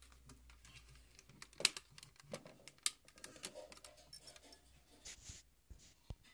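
Handling noise: scattered light clicks and taps of things being moved about on a wooden desk, two sharper clicks about one and a half and three seconds in.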